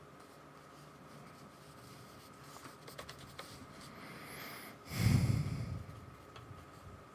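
Paintbrush dabbing on sketchbook paper, with small clicks and scrapes from handling the painting things, and a short, loud, muffled puff about five seconds in.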